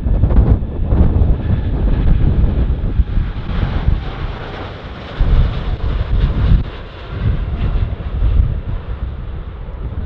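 Boeing 787-8 Dreamliner's jet engines at takeoff power as it rolls down the runway past and away. The engine roar is loudest through the middle. Heavy wind gusts buffet the microphone throughout.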